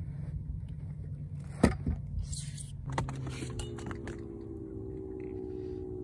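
Handling noise on a fishing boat as a bass is dealt with over the landing net: a sharp knock about 1.7 s in, then a short spell of clattering and rustling. About 3 s in, a steady hum of several held tones starts and keeps going.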